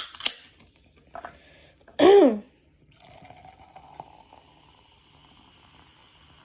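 Coke being poured into a cup: a sharp click at the start, a brief loud gliding tone about two seconds in, then a steady fizzing pour.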